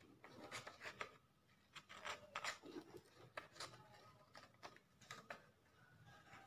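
Scissors snipping through thin origami paper: a faint run of short, irregular snips, a few close together, with the paper rustling between them.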